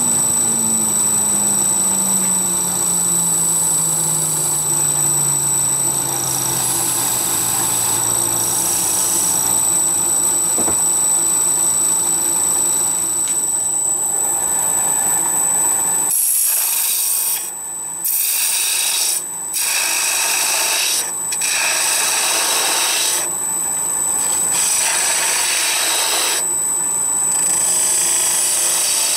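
Wood lathe running, with a steady high whine and a low hum that falls in pitch over the first several seconds. In the second half a hand-held turning tool cuts the spinning wooden top body in repeated passes, a rasping, hissing sound broken by short pauses.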